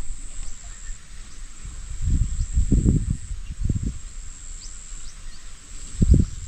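Steady high, thin drone of insects with a few faint chirps. Dull low rumbles come about two seconds in and again near the end.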